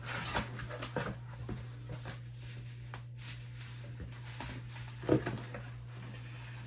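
A cardboard shipping box being handled and shifted, giving a few soft knocks and rubs, the strongest about five seconds in, over a steady low electrical hum.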